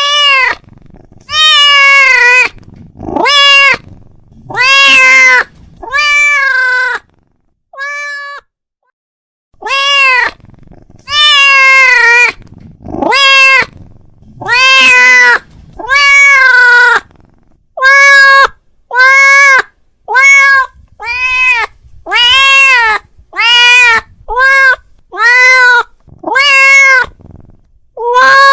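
Domestic cat meowing loudly over and over, about twenty meows in a row, each rising then falling in pitch. It is a cat calling out to another cat.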